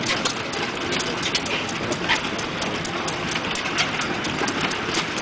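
Single-cylinder horizontal Benz stationary gas engine running, with a steady, rapid clatter of clicks and knocks, about four a second.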